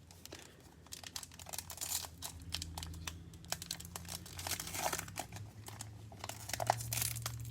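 Foil wrapper of a Prizm baseball trading-card pack being torn open and crinkled, with quick irregular crackles throughout.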